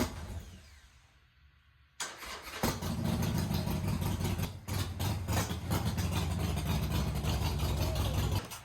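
A motor starts about two seconds in, runs with a steady low rumble for about six seconds, then cuts off suddenly.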